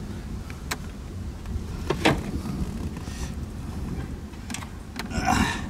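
Hands handling a small car dash speaker and its wiring under the dashboard: a few sharp plastic clicks and knocks, the loudest about two seconds in, then a short rustle near the end, over a low steady background hum.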